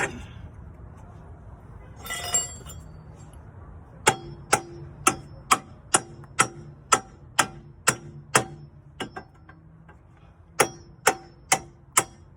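Hand-tool work on metal: a sharp click, a short scrape, then a steady run of ringing metallic ticks about two a second that pauses briefly and resumes.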